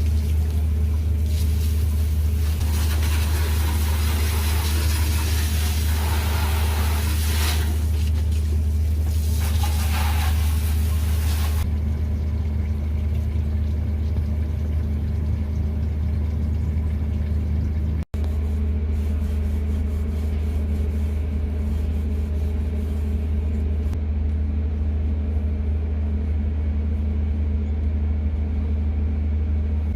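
Steady low machine hum, with a hissing rush over it for about the first twelve seconds; the sound drops out for an instant about eighteen seconds in.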